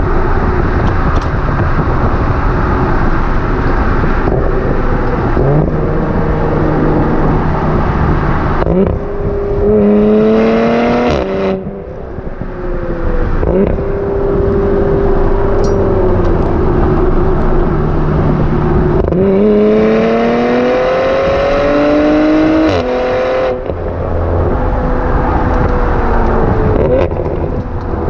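B9 Audi RS4's twin-turbo V6 exhaust through a Milltek non-resonated sports exhaust, heard close to the tailpipes while driving, with wind and road noise. The exhaust note rises twice under acceleration, about nine and about nineteen seconds in, and each pull ends in a sudden drop in pitch. Otherwise the car cruises steadily, and the note falls gently near the end.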